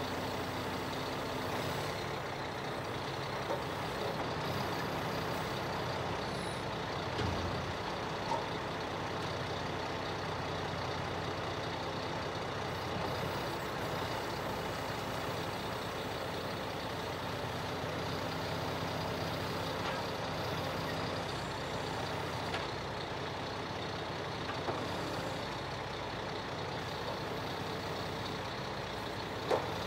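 Scania R480 timber truck's diesel engine running steadily to drive the hydraulic timber crane as the boom unfolds and swings, with a few short knocks along the way.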